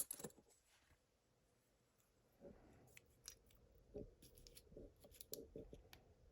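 Small metallic clicks and rattles of lock parts being handled while the plug is pushed out of the cylinder with a follower. There is one sharp click at the start, then a run of light clicks from about two and a half seconds in.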